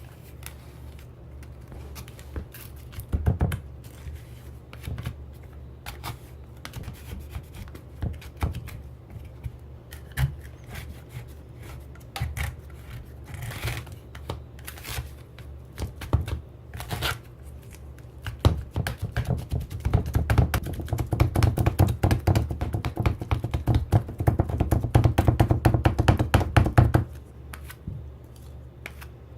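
Small plastic toy parts being handled: scattered knocks and clicks. About two-thirds of the way in comes a run of fast, dense tapping lasting roughly eight seconds, which stops suddenly.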